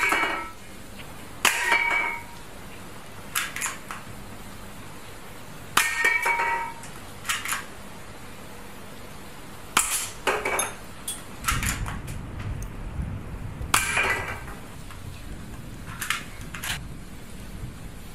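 Spring-powered toy pistol firing plastic pellets at empty metal drink cans. There are about nine sharp snaps and hits, several of them ringing tinnily as a can is struck. A low rumble runs under the second half.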